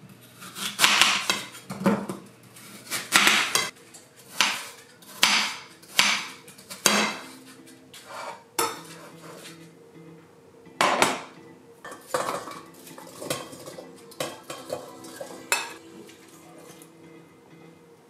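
Kitchen knife cutting peeled apples on a ceramic plate, the blade clacking on the plate about once a second, followed by more spaced clatters of a stainless steel saucepan on a glass-ceramic cooktop as diced apple pieces go in.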